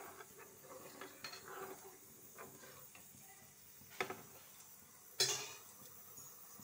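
Spatula stirring and scraping thin curry gravy in a nonstick pan, faint, then two sharp knocks of the spatula against the pan, the second louder, a little after four and five seconds in.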